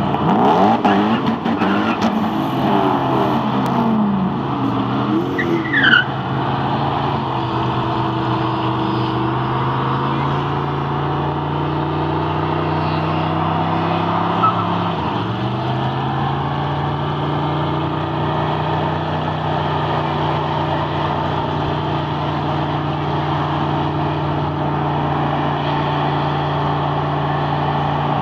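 Group burnout by V8 cars: engines revving hard in the first few seconds, then held at steady high revs while the rear tires spin. About halfway through one engine's revs drop sharply and climb straight back up.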